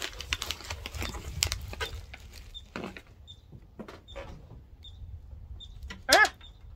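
Plastic snack bag crinkling and rustling as a hand reaches in for crunchy chickpeas, with a few more crackles after, over a steady low rumble of wind on the microphone. About six seconds in there is a brief wavering vocal sound, the loudest thing heard.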